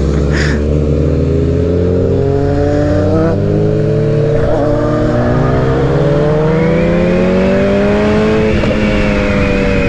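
Suzuki Hayabusa's inline-four engine heard from the rider's seat while accelerating, the pitch climbing steadily for several seconds and then easing off near the end, with wind rushing past.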